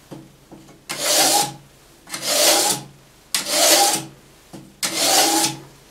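Easysharp Multi hand-held knife sharpener scraping along a machete's edge in four separate strokes, about one every second and a half. These are very light strokes, the finishing pass that refines the edge.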